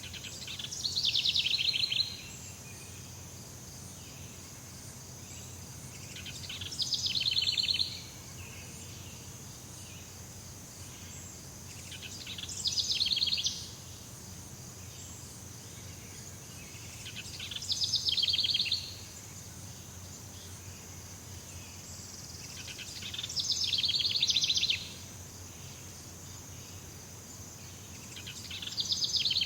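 Jungle ambience: a steady high insect drone over a low hum, with a rapid pulsed trilling call about every five and a half seconds. Each call swells for a second or two and then cuts off abruptly.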